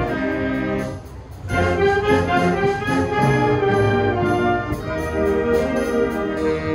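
School wind band of clarinets, saxophones and brass playing sustained chords together, with a short break about a second in before the full band comes back in with strong low brass.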